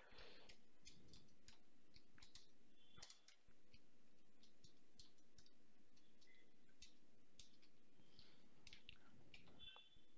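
Faint computer keyboard keystrokes: scattered, irregular clicks over near silence.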